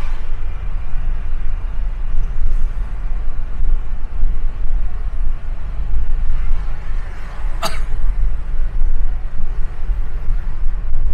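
Steady low rumble of a car driving on the road, with a single sharp click a little over two-thirds of the way through.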